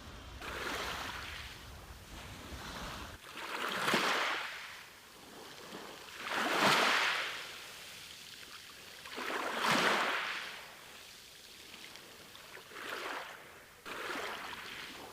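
Ocean waves breaking and washing up a beach, each wave a swelling rush of surf that dies away, coming about every three seconds. A low rumble underneath cuts off about three seconds in.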